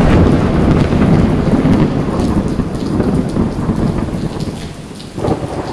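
Heavy tropical rain pouring down with rolling thunder, the rumble loudest over the first couple of seconds and easing off, then swelling again near the end.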